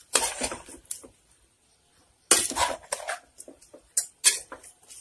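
A spoon scraping and knocking against the inside of a metal pressure cooker as raw beef, onions, tomatoes and spices are stirred together, in irregular strokes with a second's silence near the middle.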